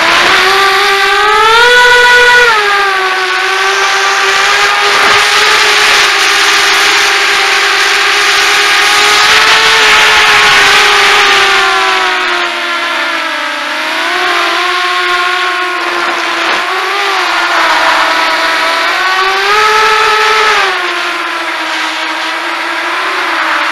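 Walkera Runner 250 racing quadcopter's brushless motors and propellers whining in flight, the pitch rising and falling with the throttle, with a swell about two seconds in and another near the end.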